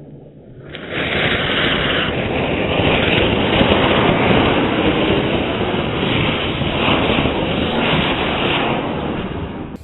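Flower pot (fountain) firework strapped to a toy car, burning: a loud, steady rushing hiss of spraying sparks that surges up about a second in and eases off near the end.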